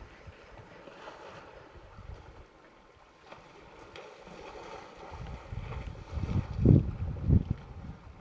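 Wind buffeting the microphone: an uneven low rumble that swells into several strong gusts in the second half.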